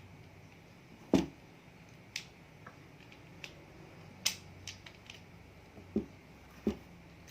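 Scattered clicks and knocks of small tools and a UTP cable with RJ45 plugs being handled and set down on a table, with a heavier knock about a second in and two more near the end.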